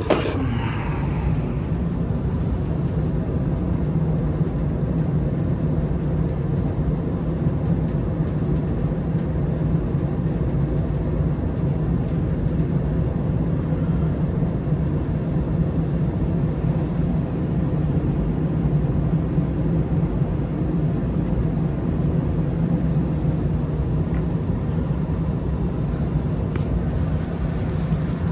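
A roughly 20-year-old Bryant gas furnace running on a heat cycle with its burners lit, a steady low rumble. It is heating normally again after its faulty hot surface ignitor was replaced. There is a brief knock at the very start.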